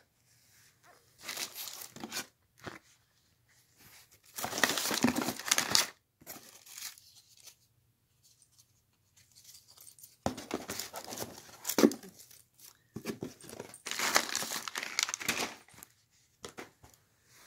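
Crinkling and rustling of a cardboard box and plastic-wrapped toys and treat packets as a cat rummages among them. The sound comes in several spells of a second or two each, with short quiet gaps between.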